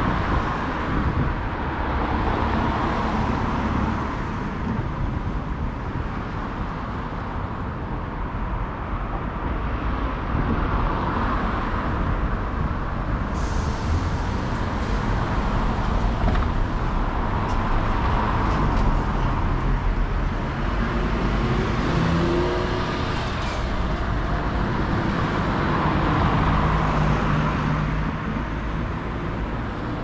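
Road traffic: cars passing one after another, their tyre and engine noise swelling and fading every few seconds over a steady rumble.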